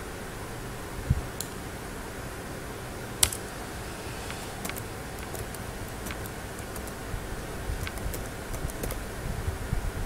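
Typing on a computer keyboard: irregular, scattered key clicks, the sharpest about three seconds in, over steady background noise.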